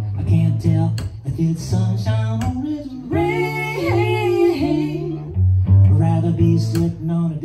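Live duo string music: a cello played as the bass, with steady low notes, under an electric fiddle and voice. A held, wavering melody note stands out about three seconds in.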